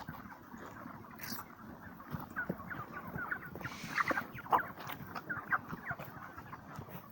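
A large flock of broiler chickens near market age calling together, with many overlapping short peeps and clucks and a few louder calls about four seconds in.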